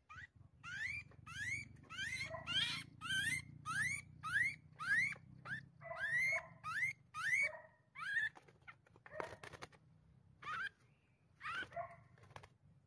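A small wild bird, just taken off a glue trap and held in the hand, giving a rapid series of short rising distress squeals, two to three a second, which thin out over the last few seconds.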